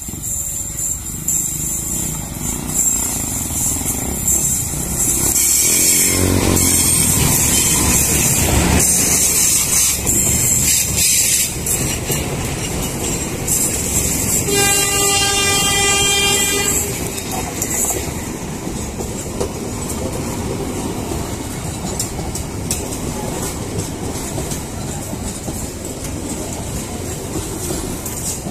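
A Bandung Raya local passenger train, hauled by a diesel locomotive, passes close by. The rumble builds and is loudest from about five to seventeen seconds in. Its horn sounds once for about two seconds around the middle. After that comes the steady rolling of a long line of economy coaches, with wheels clacking over the rail joints.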